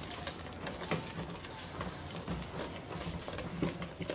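Silicone spatula stirring a thick cornmeal and tapioca starch dough fast in an aluminium pot, with irregular soft scrapes and knocks against the pot, worked quickly so the dough doesn't lump.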